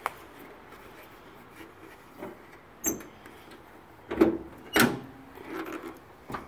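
Scattered knocks and rubbing, with two louder clunks between four and five seconds in as the car's hood is released and lifted.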